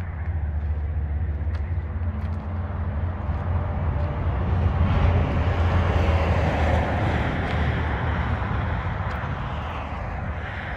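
A vehicle going by, a steady low rumble that swells to its loudest about five to seven seconds in and then fades away.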